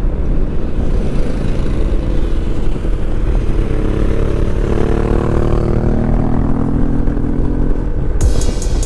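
Kymco AK550 maxi-scooter's parallel-twin engine and wind rumble while riding, the engine note rising as it accelerates about halfway through. Music starts near the end.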